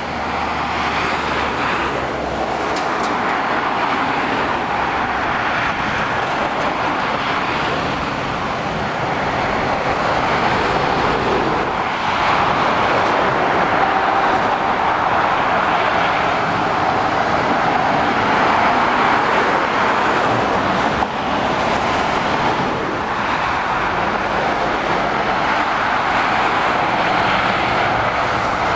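Motorway traffic passing below: cars, a van and lorries making a steady rush of tyre and engine noise that swells and eases as vehicles come through.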